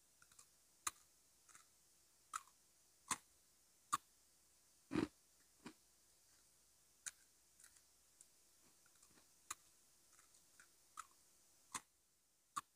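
Crunchy biscuit sticks being bitten and chewed close to the microphone: short, sharp crunches at irregular intervals, about one a second, with one fuller crunch about five seconds in.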